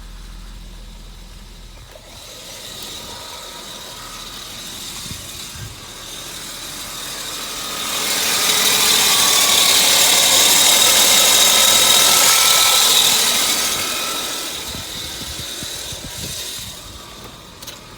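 1998 Volvo V90's straight-six engine running with a high-pitched screech from the cam area. The screech swells to its loudest midway and dies back down. The owner suspects a valve.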